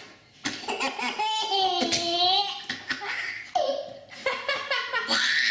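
A baby laughing in several bursts, with one long, high-pitched laugh held for about a second and a half, starting about a second in.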